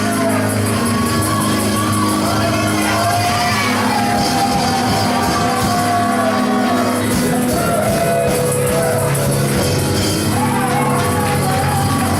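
Live gospel praise music: singing over held instrumental chords, with tambourine and shouts from the congregation.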